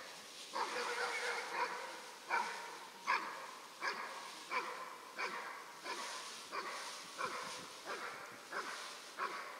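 A dog barking steadily and repeatedly, about one bark every three quarters of a second.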